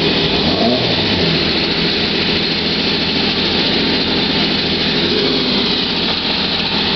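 Gulf-liveried Porsche 917's air-cooled flat-twelve race engine idling, a steady, loud, even running sound with no revs.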